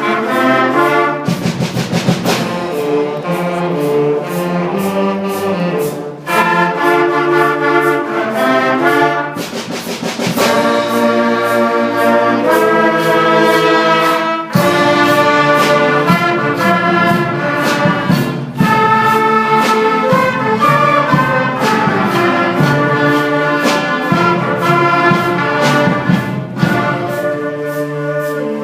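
Music led by brass instruments such as trumpets and trombones, playing sustained chords over repeated percussion strikes.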